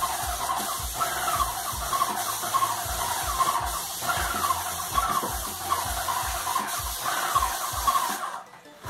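Graco Magnum LTS 15 airless paint sprayer at work: its piston pump knocks in a steady rhythm of about two and a half strokes a second, each stroke with a short falling squeal, under the steady hiss of paint spraying from the gun. The spray hiss cuts off near the end while the pump strokes carry on a moment longer.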